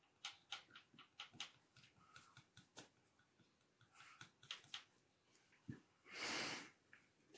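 Faint, quick scratches and ticks of a pyrography pen's tip making short strokes on wood. About six seconds in, a breath lasting under a second is the loudest sound.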